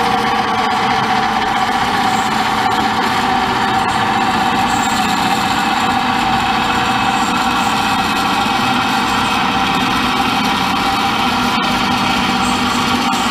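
W.F. Wells F-15 horizontal band saw running steadily, its blade cutting dry through a piece of metal without coolant, a continuous hum and whine that does not change.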